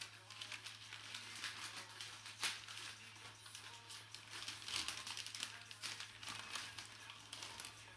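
Plastic packaging crinkling and rustling as it is handled, with one sharp click about two and a half seconds in.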